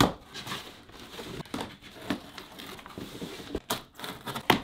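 Cardboard shoeboxes being opened and handled: rustling and crinkling, with several sharp knocks, the loudest just before the end.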